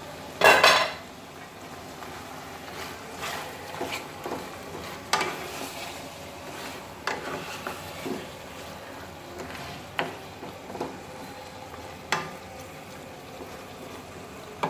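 Spiced beef and onions sizzling in oil in a steel karahi, being stirred with a wooden spatula that scrapes and knocks against the pan at irregular moments, the loudest knock about half a second in. This is the kosha stage, the meat frying down in its spices without any added water.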